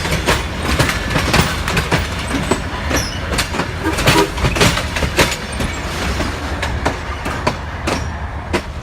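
Amtrak passenger train rolling past, its wheels clicking repeatedly over the rail joints above a steady low rumble.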